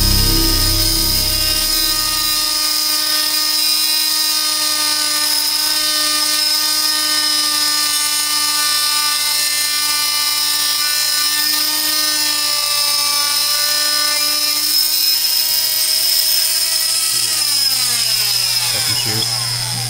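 Electric cast saw's motor running with a steady high whine as its oscillating blade cuts through the helmet shell. Near the end it is switched off, and the pitch falls as the motor winds down.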